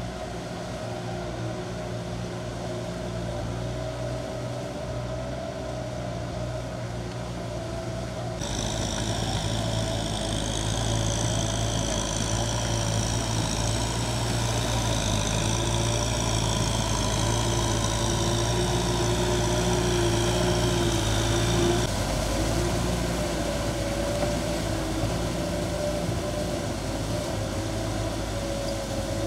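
Kubota M6040S tractor's diesel engine running steadily under load while it works a rotary tiller through paddy mud. About eight seconds in it gets louder, and a high whine slowly falls in pitch for a while.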